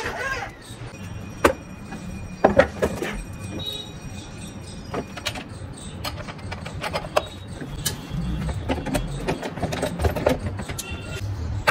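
Irregular clicks, knocks and clinks of hard plastic and small metal parts as a plastic wheel is fitted onto a ride-on toy car's axle by hand and with pliers.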